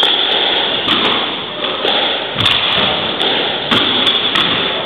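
Squash rally: the ball cracking off rackets and the court walls, a series of sharp impacts about one a second, each echoing in the court.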